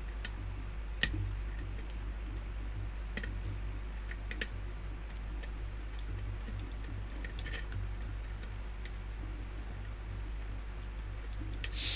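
Lock pick and tension wrench working the pins of a challenge lock during single-pin picking: scattered small metallic clicks, a few of them close together, over a steady low hum.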